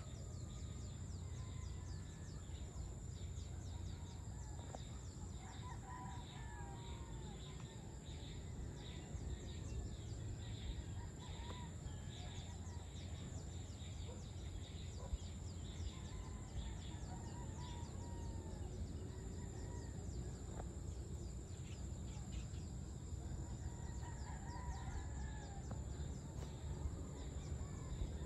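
Roosters crowing faintly a few times, over a steady chorus of insects, a high drone with fast even pulsing, and a low steady rumble of background noise.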